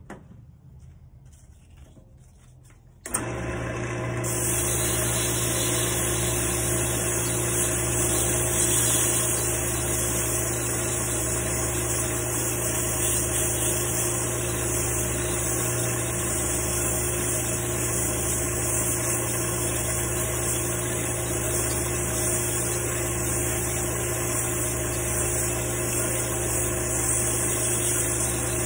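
Wood lathe switched on with a click about three seconds in, then running at a steady speed with an even motor hum and a constant high hiss.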